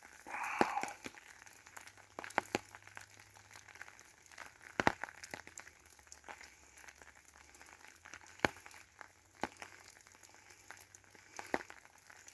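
Scattered raindrops tapping on an umbrella overhead: irregular sharp taps with faint crinkling, and a brief rustle about half a second in.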